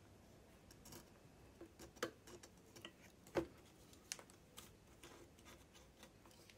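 Faint, scattered light clicks and taps from hands and a craft knife working on a plastic instrument cluster and its flexible printed circuit board, the sharpest taps about two, three and a half and four seconds in.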